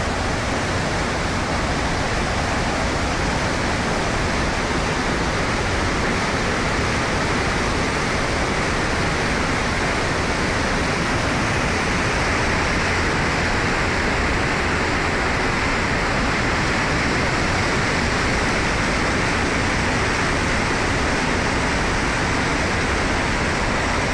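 Flash-flood torrent of muddy water rushing past, a loud, steady rushing noise.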